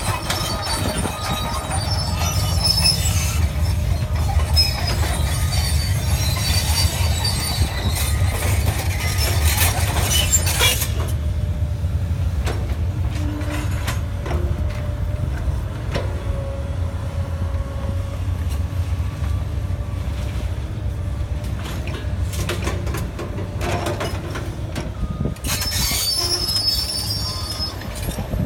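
Komatsu excavator's diesel engine running steadily while it works, with high metallic squeals and scraping for the first ten seconds or so and again near the end.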